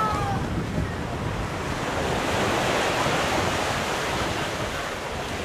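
Ocean surf washing steadily, with wind buffeting the microphone; the wash swells a little midway.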